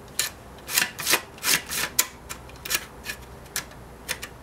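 Packard shutter mechanism worked by hand: about a dozen irregular clicks and short scrapes as it catches, which the repairer puts down to a pin jamming up.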